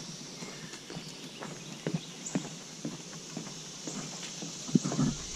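A hiker's footsteps walking from a dirt trail onto a wooden plank footbridge, about two steps a second, with a cluster of louder knocks on the boards near the end.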